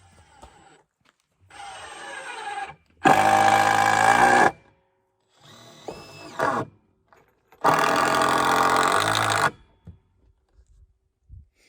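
Power drill running in separate trigger pulls, as when driving screws into lumber: two short, quieter spins and two longer full-speed runs of about a second and a half to two seconds each.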